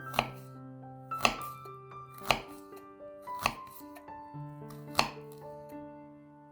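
Knife chopping on a cutting board: five separate cuts, roughly one a second, over background piano music.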